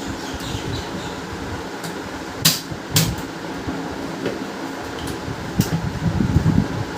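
Steady hum of a room fan, with sharp clicks and light knocks of plastic printer parts being handled and fitted together: two loud clicks about half a second apart near the middle, then a lighter click and a few soft knocks near the end.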